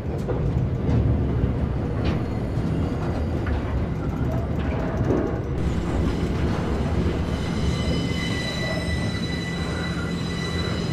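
Intermodal freight train of truck trailers on pocket wagons rolling slowly past, the wagons rumbling steadily on the rails.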